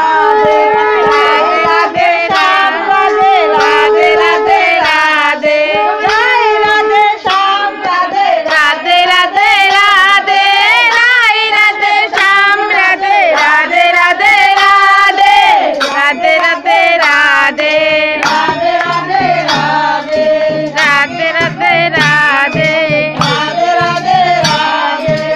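A group of women singing a devotional kirtan chant together, with hand clapping making frequent sharp clicks. A low steady tone joins about eighteen seconds in.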